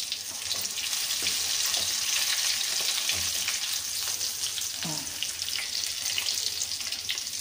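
Batter-coated potato bondas deep-frying in hot oil, a steady sizzle, with a few light clicks of a metal slotted spoon as they are turned in the pan.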